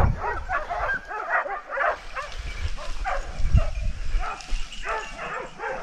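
A pack of hunting dogs barking and baying over and over, the calls overlapping: dogs holding a wild boar at bay.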